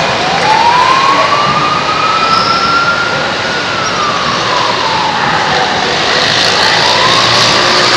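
A siren wailing, its pitch rising slowly, falling back about six seconds in and starting to rise again near the end, over a loud steady rushing noise.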